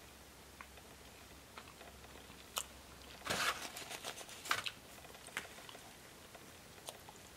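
Close-up eating sounds: chewing with scattered soft mouth clicks, and a paper napkin crinkling as fingers are wiped, a short rustle about three seconds in and another a second later.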